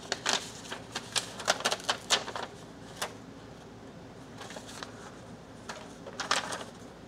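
Sheets of paper rustling and crackling as they are handled and pulled apart by hand: a quick run of short crisp rustles, then another cluster a few seconds later.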